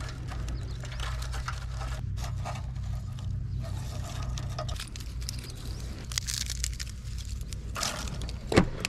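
Intermittent scraping and rustling in several bouts over a low steady hum, with a sharp knock near the end.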